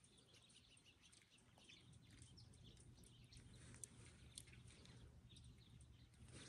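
Near silence: faint outdoor background with a low steady hum and a few faint, short high chirps or ticks scattered through it.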